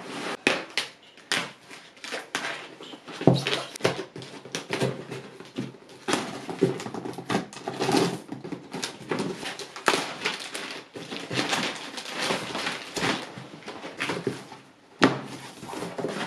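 Plastic stretch film crinkling and crackling in an irregular run as it is slit with a utility knife and pulled off a cardboard box. Cardboard flaps are folded open near the end.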